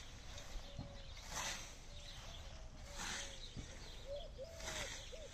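Hand scythe swishing through tall grass and clover. There are three steady mowing strokes, each a short hiss about a second and a half apart.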